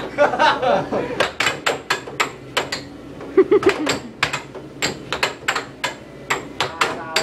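Air hockey puck being struck back and forth by mallets and clacking off the table's rails: a fast, irregular run of sharp clacks, several a second.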